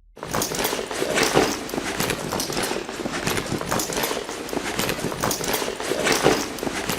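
A bag being handled and rustled: continuous crinkling and scraping of its material with many small irregular clicks, starting suddenly just after the start.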